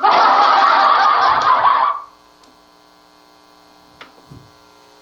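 A loud burst of noise from the voice-effects mixer's preset sound effects, lasting about two seconds and cutting off sharply. After it comes a steady mains hum from the mixer setup, with a few faint clicks.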